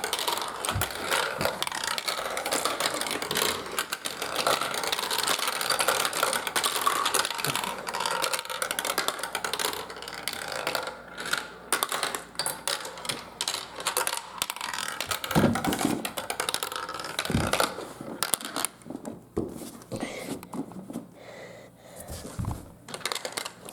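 Marbles rolling and clattering through a marble run track: a dense run of clicks and rattles, with a few low knocks, thinning to scattered clicks over the last several seconds.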